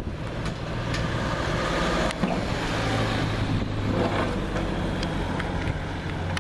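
Road traffic passing close by: a motor vehicle's engine hum with tyre and road noise that swells through the middle and eases off.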